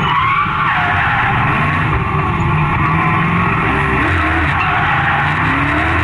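Modified Chevrolet LS1 V8 running hard in a BMW E36 drift car, heard from inside the cabin, its pitch rising and falling with the throttle while the tyres squeal and slide.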